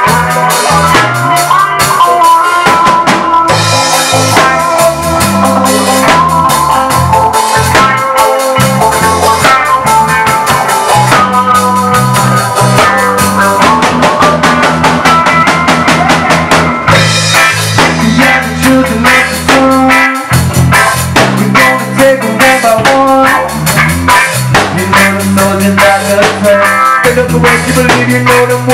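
Rock band playing an instrumental passage: a Les Paul-style electric guitar plays over a drum kit, with a low line moving underneath.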